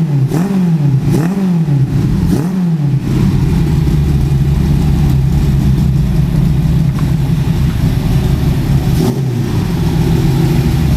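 Four-cylinder engine of the homemade Riva 600 motorcycle, built from Honda CG parts, blipped three times and then idling steadily with a heavy rumble through an unfinished exhaust with no tip fitted.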